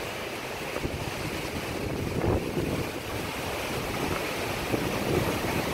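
Gusty wind blowing through the trees and buffeting the microphone with a low rumble.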